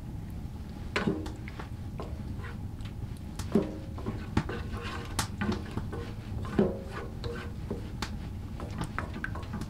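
A spoon stirring food in a frying pan, scraping and knocking against the pan. Several louder clanks ring briefly, a few seconds apart, among many small clicks.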